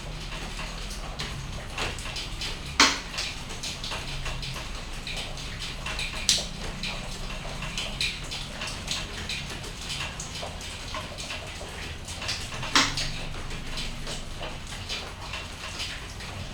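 Rain dripping and pattering onto surfaces: a dense scatter of separate drop clicks over a low steady hum, with three much louder drips about three, six and thirteen seconds in.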